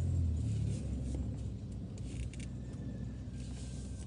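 Low rumble of a car's engine and tyres heard from inside the cabin as the car backs up and turns, a little louder in the first second, with a few light clicks.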